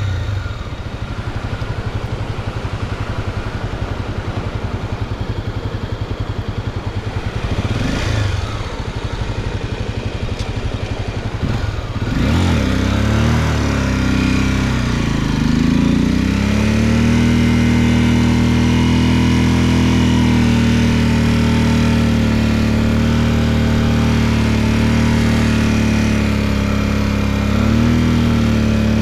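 Off-road motorcycle engine running while riding: a rougher, noisier stretch with a brief rev about eight seconds in, then from about twelve seconds the engine note rises and wavers before settling into a steady note, with a short blip near the end.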